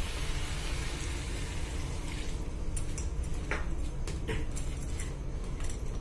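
Water poured from a steel tumbler into a hot pan of instant noodles: a steady sizzling hiss that dies away about two seconds in, followed by a few clicks of a spoon against the pan.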